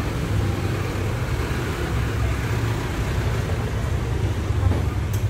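A motor vehicle engine idling: a steady low rumble.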